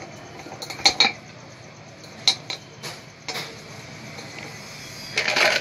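Small coloured decorative stones clinking against the glass bottom of an empty fish bowl as they are set in place by hand, a few separate sharp clinks, then a quicker run of clinks and rattling near the end.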